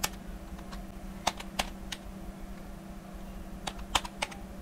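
Computer keyboard being typed on: scattered keystroke clicks in short groups, over a steady low hum.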